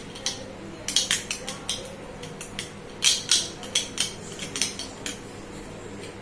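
A metal spoon clinking and scraping against the inside of a glass as coffee, sugar and water are mixed, in quick irregular runs of clinks.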